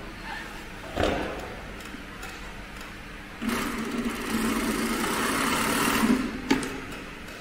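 Heavy-duty FIBC big bag sewing machine (Keestar 1510-L14) running for about three seconds, starting abruptly midway. A knock comes about a second in and a sharp click comes near the end.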